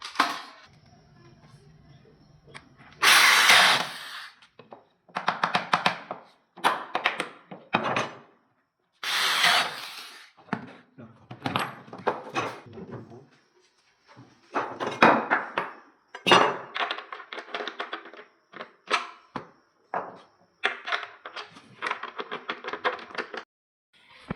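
Carpentry tool work on wood: a string of short runs of a power tool, each a second or so of rapid rattling, with two louder, noisier bursts about three and nine seconds in.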